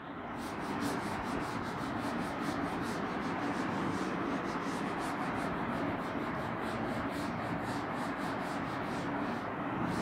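Green chalkboard being wiped with a yellow sponge duster, in quick, continuous back-and-forth scrubbing strokes that rub the chalk writing off.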